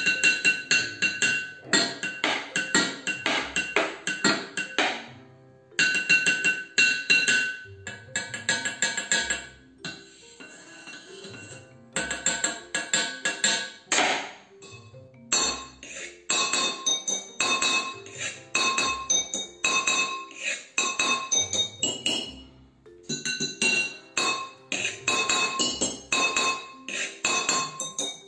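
Wooden spoons drumming on a stainless steel pot and its lid: fast rhythmic strikes, each with a ringing metallic tone, with two short pauses.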